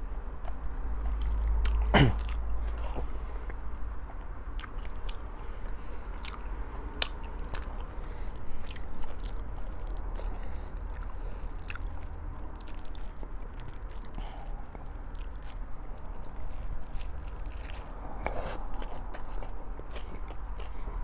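Close-up chewing and biting of a meal of corned beef, fried eggplant, eggs and rice, with many small clicks throughout. About two seconds in, a short loud sound sweeps down in pitch.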